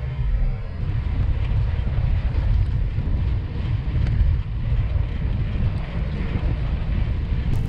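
Wind buffeting the microphone of a camera on a moving bicycle, a steady heavy rumble mixed with street traffic noise.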